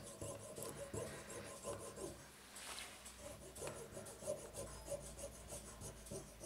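A fine saw blade sawing through the plastic pin on the bottom of a quartz anniversary clock's rotating pendulum, in faint, rasping back-and-forth strokes as the pin is cut to length.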